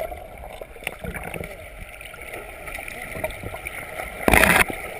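Stream water gurgling and lapping against a GoPro's waterproof housing held at the waterline, with a brief loud splash about four seconds in.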